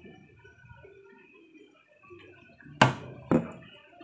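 Two sharp metal clanks about half a second apart, a metal cooking utensil knocked against a steel frying pan.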